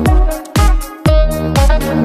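Electronic dance music with a steady kick drum about twice a second over bass and chords. The beat briefly thins out just under a second in.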